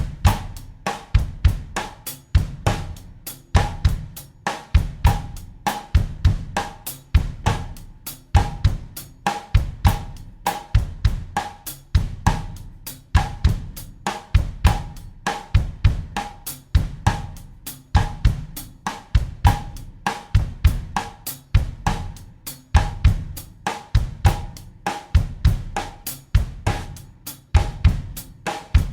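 Acoustic drum kit playing a steady bossa nova groove at 100 beats per minute in 4/4: bass drum, snare rim clicks and hi-hat/cymbal in an even, repeating pattern.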